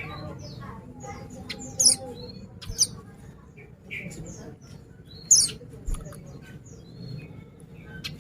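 A white-eye (pleci) singing: quick, high-pitched twittering with sharp, loud notes about two, three and five seconds in.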